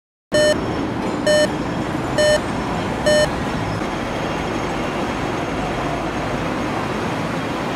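Steady traffic noise from a busy road junction under a flyover, cutting in just after the start. Four loud electronic beeps sound about a second apart over the first few seconds.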